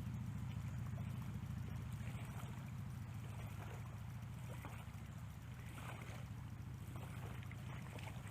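Steady low rumble of wind and shallow water on the flats, with a few faint, short splashy sounds every second or two.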